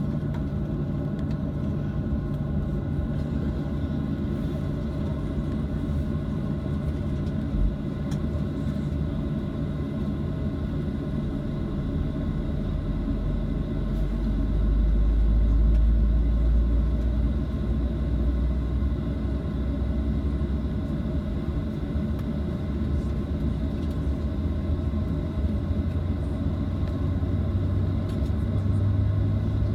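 Boeing 737-700 cabin noise: its CFM56-7B turbofan engines drone steadily over a low airframe rumble. The low rumble swells for a few seconds about halfway through, and a deeper drone comes in near the end.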